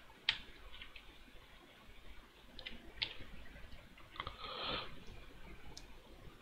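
A few faint, sharp computer mouse clicks over low room noise, with a short soft hiss about four seconds in.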